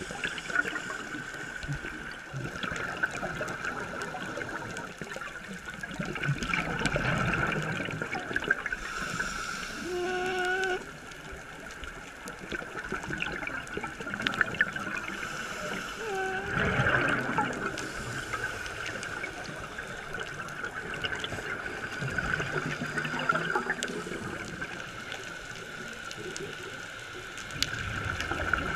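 Underwater sound of scuba diving: bubbles from divers' regulators gurgling up in swells every several seconds, over a steady high hum. A short wavering tone sounds twice near the middle.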